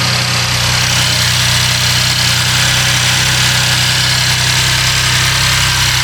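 BMW F82 M4's S55 twin-turbo inline-six idling steadily.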